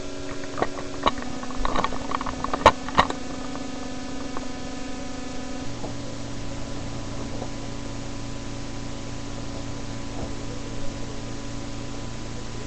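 A few sharp clicks and knocks in the first three seconds, handling noise while something is put in, then a steady hiss with a low hum.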